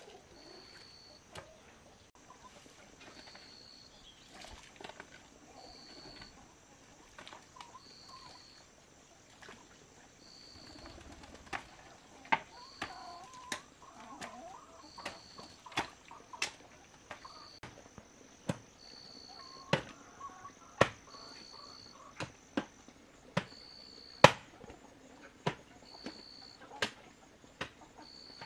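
Hoe blade chopping into earth: sharp strikes about once a second, mostly in the second half. A faint high chirp repeats about every second behind them.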